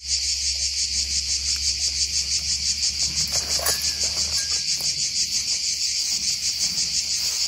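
Steady chorus of insects, a shrill high buzz pulsing rapidly. A few soft footsteps on dry forest litter come about halfway through.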